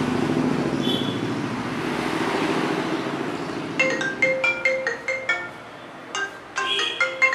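A low rumbling noise for the first few seconds, then a quick tune of bright marimba-like notes in two short phrases, the second starting about six seconds in.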